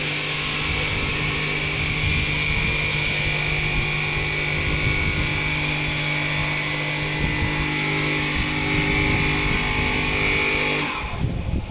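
Richpeace single-needle frame-type quilting machine running and stitching a quilt: a steady high whine over a low hum from its drives, stopping near the end.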